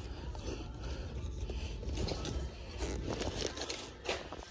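Handbags rustling and knocking against a wire display rack as they are handled and picked through, with scattered small clicks over a low steady rumble.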